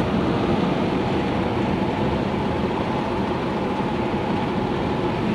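Steady road noise inside a moving car at highway speed: tyre, wind and engine sound blending into an even rumble.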